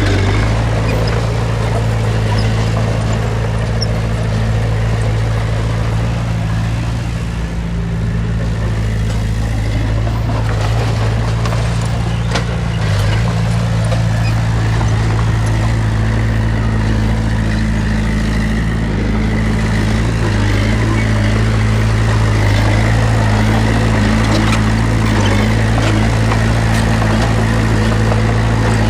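Diesel engine of heavy earthmoving machinery running steadily, easing off briefly about seven seconds in. A faint high whine sits over it in the second half.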